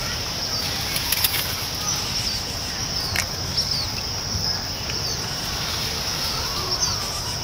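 Outdoor woodland background: small birds chirping now and then over a steady high-pitched drone, with a few sharp clicks around one and three seconds in.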